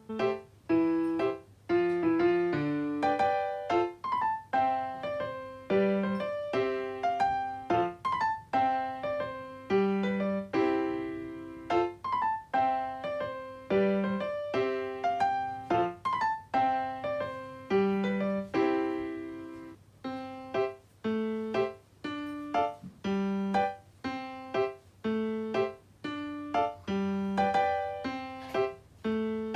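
Background piano music: a melody of struck notes over low chord notes at a steady, unhurried pace, each note fading away.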